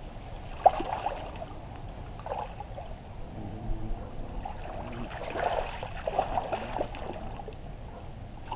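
Muddy water sloshing and splashing as several people wade and dig by hand in a shallow pond, with one sharp smack about a second in.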